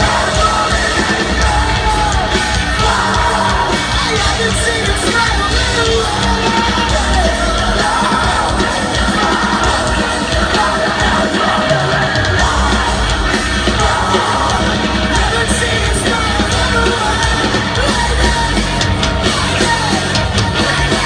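Loud live rock band playing in a large hall, with a singer singing and yelling over the full band.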